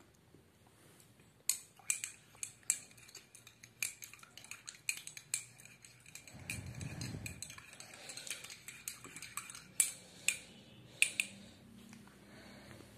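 Metal spoon clinking against a cup in a long run of irregular sharp taps, as sugar is stirred into coffee, with a brief dull rustle midway. The clinking stops about eleven seconds in.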